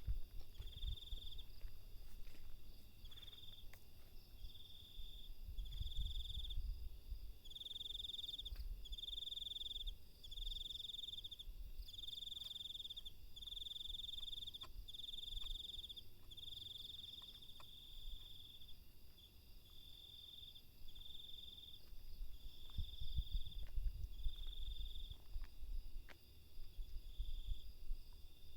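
Crickets chirping: a high, even trill repeated over and over, each trill about half a second to a second long with short gaps between. A low rumble swells underneath a few seconds in and again near the end.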